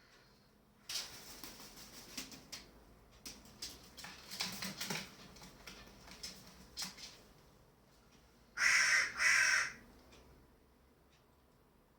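Scattered light clicks and scratches, then a bird gives two loud, harsh calls back to back, each about half a second long.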